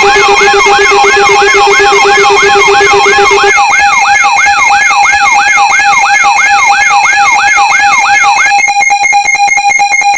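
Loud layered electronic alarm: a siren-like sweep rising and falling about three times a second over several steady tones. A low steady tone drops out after about three and a half seconds. Near the end the sweeps give way to fast pulsing before the whole alarm cuts off abruptly.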